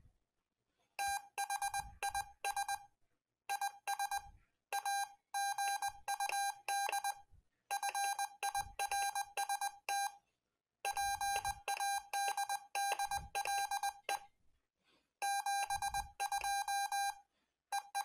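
Morse code sidetone from an HRS CW Hotline's built-in keyer, keyed with a stainless steel Morse paddle: a single buzzy pitch switching on and off in dits and dahs, sent in groups with short pauses between them. It starts about a second in and stops shortly before the end.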